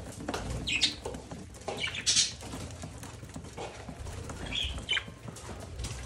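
Budgerigars giving short, scattered chirps, with a louder rustling burst about two seconds in.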